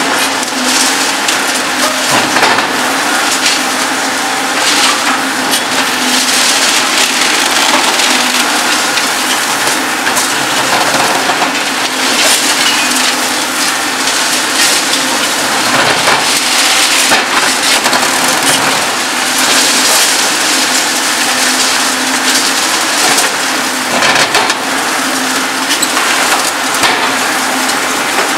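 Reinforced concrete cracking and crumbling in the jaws of a Demarec DCC-75 hydraulic concrete shear on a Volvo EC 750E demolition excavator, with sharp cracks throughout. A steady hum from the machine runs underneath.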